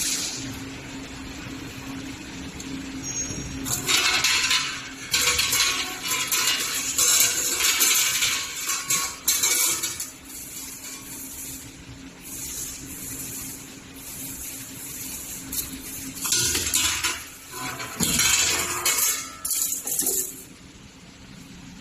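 CNC 3D flat-bar bending machine at work: a steady low hum under repeated loud bursts of hissing noise lasting a few seconds each.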